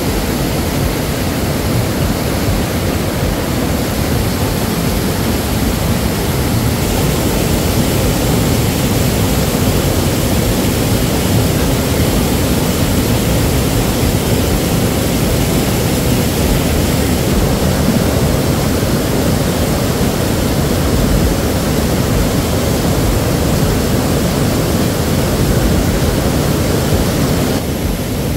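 River water rushing over rocks: a loud, steady, unbroken noise.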